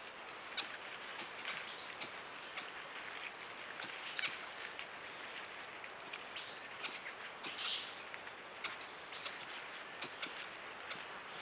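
Dry leaf litter crackling and rustling under a group of foraging white-nosed coatis, over a steady background hiss. A bird gives a short high call that steps down in pitch, four times at roughly two-and-a-half-second intervals.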